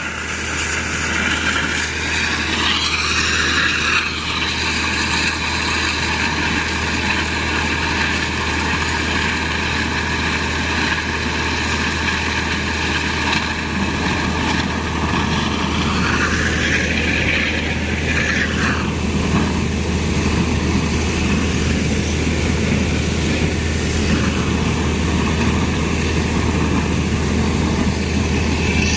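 Mechanical compressor running steadily: a continuous low hum with a steady whine above it, the whine briefly shifting in pitch a little past halfway.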